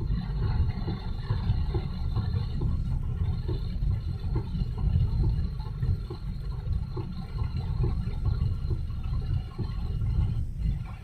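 Vehicle on the move in heavy rain: a steady, fluctuating low rumble of road and wind noise mixed with the wash of rain and water.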